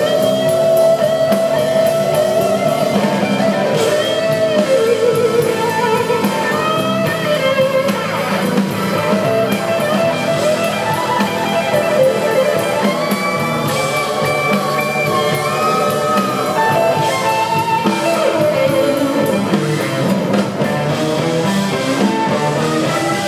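Live electric blues guitar solo, a lead line full of bent notes that slide up and down in pitch, played over a full band backing.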